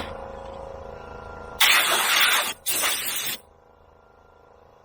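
Two loud blasts of compressed air from a high-pressure air blow gun, the first about a second long and the second a little shorter, starting about a second and a half in. Before them, a steady hum from the running air compressor.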